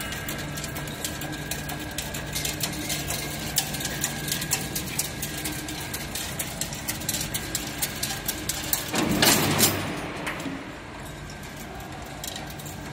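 Chain link fence machine running: a steady motor hum with a thin high tone and many quick, irregular mechanical clicks, and a louder noisy burst lasting about a second around nine seconds in.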